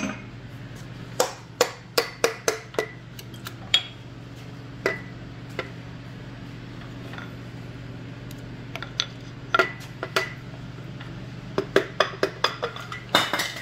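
Sharp metallic clinks and taps in scattered clusters from a 305 V8's crankshaft and connecting rods being worked on during teardown. Near the end comes a quick run of taps as a small ball-peen hammer raps on a connecting rod cap. A steady low hum runs underneath.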